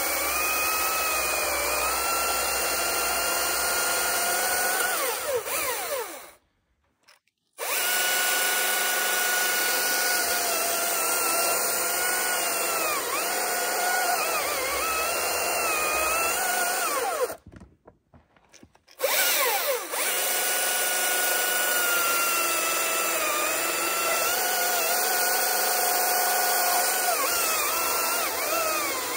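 Top-handle chainsaw running at full speed while cutting into a log, its whine dipping and wavering in pitch as the chain bites into the wood. It cuts out twice, for a second or so each time, then starts straight back up.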